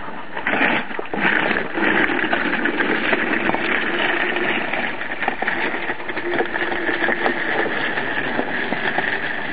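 Office chair's caster wheels rolling over rough tarmac, a steady rolling noise that starts about half a second in, with small ticks and knocks over it.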